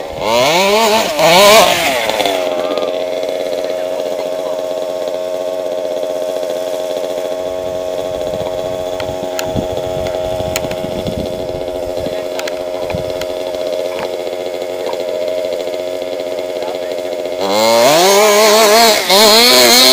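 Two-stroke engine of a large-scale FG radio-controlled buggy, revved hard in rising and falling bursts for the first two seconds, then idling steadily. Near the end it is revved again in bursts as the buggy pulls away trailing exhaust smoke.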